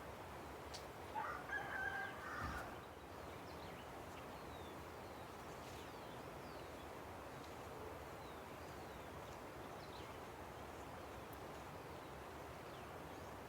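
A rooster crows once about a second in, over the steady rush of a river. Faint chirps of small birds come and go.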